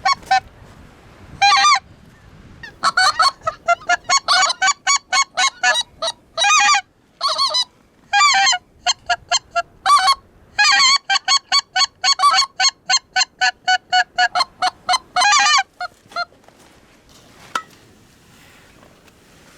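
Geese honking: a long run of loud, short honks with brief gaps, which stops about sixteen seconds in.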